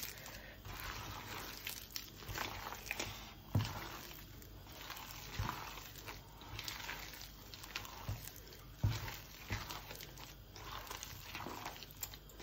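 Thick vada batter with chopped onions being mixed and kneaded by hand in a stainless steel bowl: irregular wet squishing and crackling, with two louder thuds.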